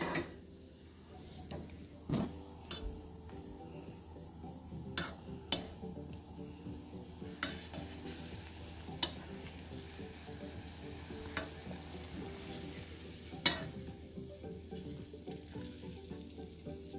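Semolina halwa mixture of ghee and sugar syrup bubbling and sizzling in a stainless steel saucepan as it is stirred with a spatula, cooking down and spattering. Sharp clicks of the spatula against the pan come now and then.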